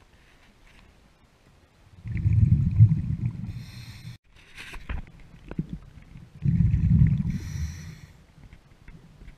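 Scuba diver breathing underwater through a regulator: two breaths about four seconds apart, each a loud bubbling rumble of exhaled air with a hiss. A few light clicks fall between them.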